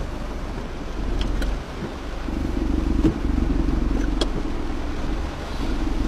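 A vehicle on the move: a steady low engine and road rumble that swells and eases, with a few sharp clicks.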